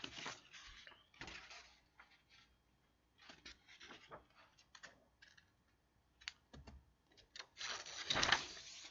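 Scattered, irregular light clicks and taps of computer keys, with a louder burst of noise about eight seconds in.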